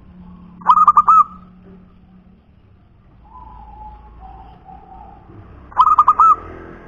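Zebra dove (perkutut) cooing twice, each phrase a quick run of about four clear notes, the two about five seconds apart.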